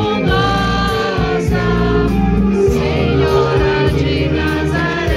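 Christian choir music: voices singing held notes together over a steady low accompaniment.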